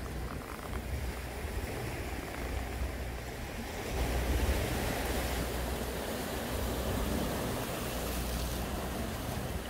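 Sea surf washing over shoreline rocks, a steady rushing wash, with wind buffeting the microphone in an uneven low rumble that grows louder about four seconds in.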